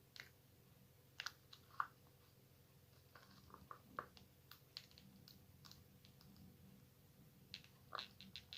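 Faint, scattered small clicks and soft rustles of small objects being handled, with a quick run of clicks near the end.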